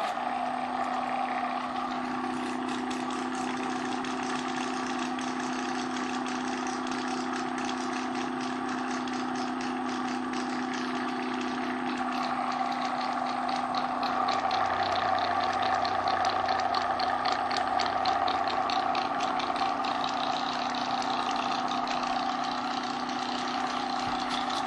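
Electric motor of a Vialle LPi fuel pump running steadily while submerged in a bucket of liquid, a constant hum and whine, its bearings and shaft freshly replaced. About halfway through the tone shifts slightly and a deeper hum joins in for a few seconds.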